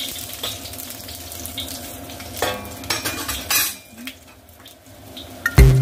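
Ginger and garlic sizzling in hot oil, with a few clattering strokes of a spatula stirring in the pan; the sizzle dies down about four seconds in. Music comes in at the very end.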